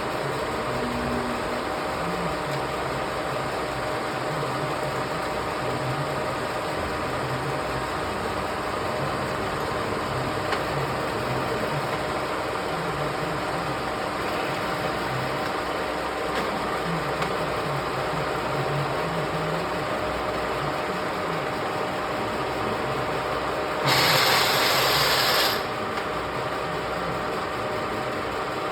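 Parkson 2N universal milling machine running steadily under its 7.5 HP main motor, with several steady tones over a low hum. Near the end a louder burst of noise lasts about a second and a half, then the steady running goes on.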